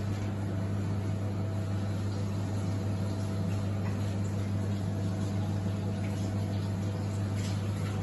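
Steady low electrical hum with an even hiss over it, from a running household appliance in a small kitchen.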